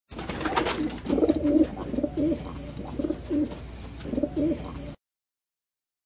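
Pigeon cooing: a series of low, warbling coos, about five phrases, with a brief rustle at the start. The sound cuts off about five seconds in.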